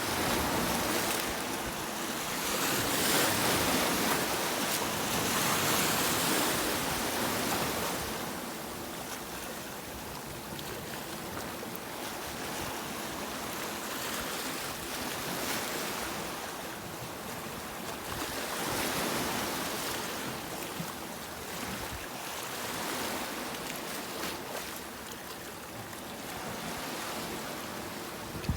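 Sea waves breaking and washing on a shore, a steady rush of surf that swells louder in the first few seconds and again about halfway through.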